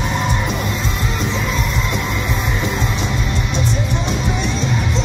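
Live rock band playing loud: electric guitars and drums, with the singer's vocals over them.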